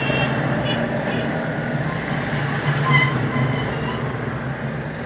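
Busy street noise of traffic and a crowd, heard from inside a car, over a steady low hum. A short high tone sounds about three seconds in.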